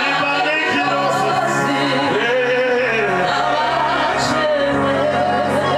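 Gospel song in worship: a lead voice singing a bending melody over steady low instrumental accompaniment.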